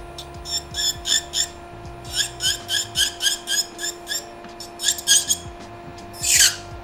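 Electric nail file running with a steady hum while its sanding bit works an acrylic nail on a hollow plastic practice hand, giving a string of short, high squeaks, about three or four a second, and one longer falling squeal near the end.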